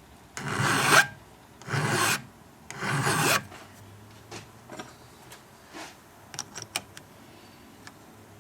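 A hand file rasping across a chainsaw chain's depth gauge in three strokes, lowering the depth gauge to the right height below the cutter's top plate. A few faint clicks follow.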